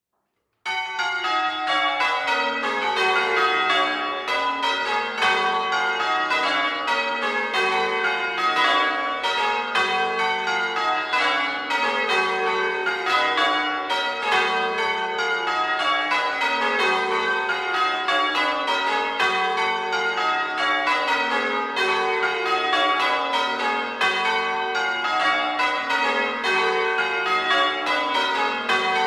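Ring of six church bells rung in full circle (change ringing). The bells strike one after another from highest to lowest in falling sequences that repeat about every two seconds, starting abruptly just under a second in.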